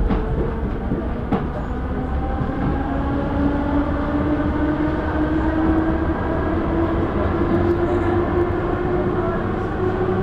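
MS61 electric multiple unit on RER A accelerating: a steady rumble with a motor and gear whine that rises slowly in pitch as speed builds. There is a sharp click near the start and another about a second and a half in.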